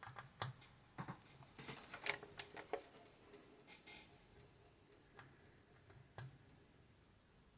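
Faint metallic clicks and ticks of a lock pick working the pins of an Ikon N1 cylinder under tension: single clicks spaced out, with a quick run of clicks about two seconds in.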